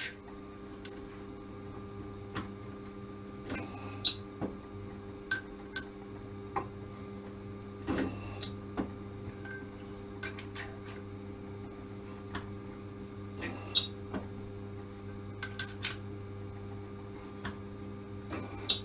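Scattered light metal clinks and taps as small stainless-steel brackets are handled at a drill press, over a steady machine hum.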